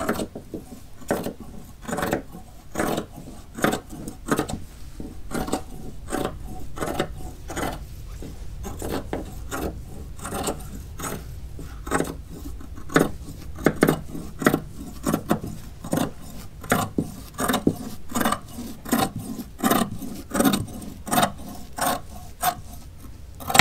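Large hand shears cutting through fiberglass chopped strand mat, a crunchy snip about twice a second, over and over.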